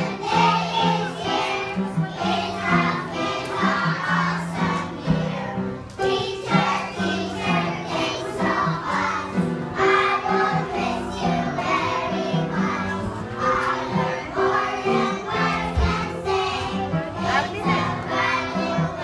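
A group of young children singing together along with instrumental music.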